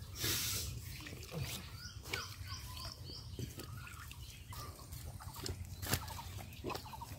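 Faint trickling and dripping as a drink is poured from a plastic cup into cut green bamboo-tube cups. A bird chirps several times in quick succession a few seconds in.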